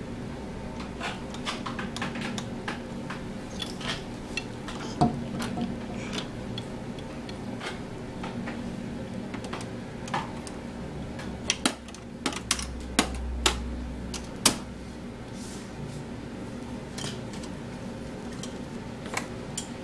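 Plastic toy kitchen pieces clattering: small plastic utensils, knobs and doors tapped, clicked and knocked in an irregular scatter, with a cluster of sharper knocks about two-thirds of the way through.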